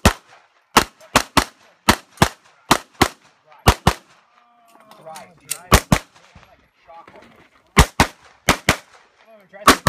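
Semi-automatic pistol fired rapidly, mostly in quick pairs of shots, about sixteen shots in all, with two pauses of nearly two seconds in the middle.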